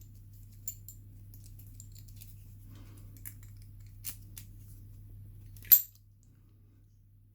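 Small metallic clicks and taps as an Abus 85/50 padlock is handled, with one sharp, louder click near the end.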